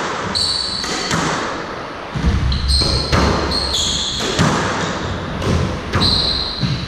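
Squash rally: the ball struck by rackets and hitting the court walls several times, with shoes giving short high squeaks on the wooden floor.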